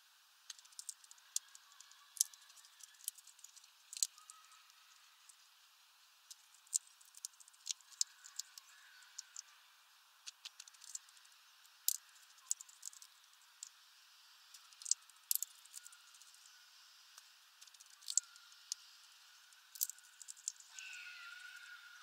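Hawfinch cracking sunflower seeds in its heavy bill: sharp, irregular cracks and clicks, sometimes several in quick succession.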